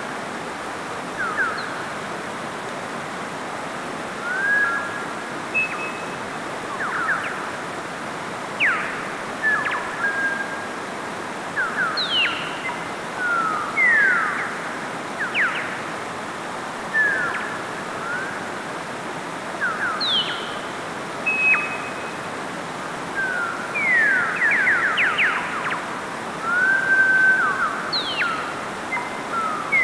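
Mountain stream rushing steadily over rocks. Over it come frequent short, high chirps and whistles at irregular intervals, some sliding down in pitch, some up, some held briefly on one note.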